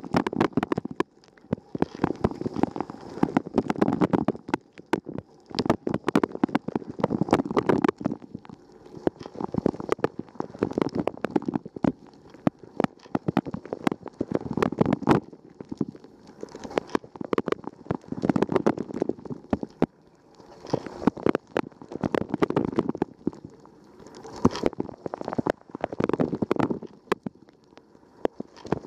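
Water spraying and splashing inside a Rosenlew dishwasher's tub during the wash, heard from inside. The spray swells and fades in waves about every three to four seconds, with dense crackling droplet hits.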